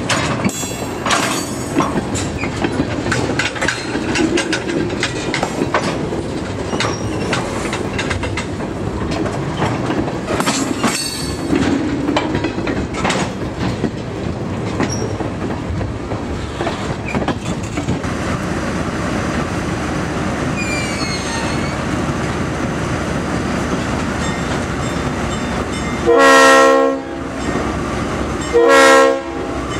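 Railroad tank cars rolling past at low speed: a steady wheel rumble with sharp clacks as the wheels cross rail joints. Near the end come two loud blasts of a multi-chime locomotive air horn, a Leslie RS-3L.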